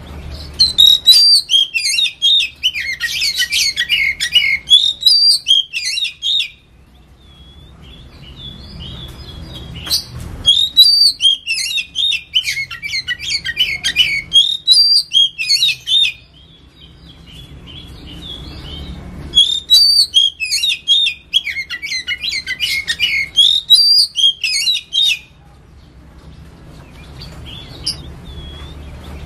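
Oriental magpie-robin (kacer) singing in three bouts of about six seconds each, full of rapid, varied whistles and chattering notes. Short pauses between the bouts hold only a faint low hum.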